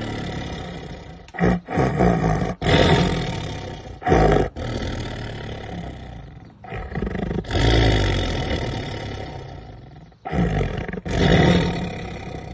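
Tiger snarling and roaring while guarding a pile of raw meat: a run of about eight loud outbursts, each tailing off before the next.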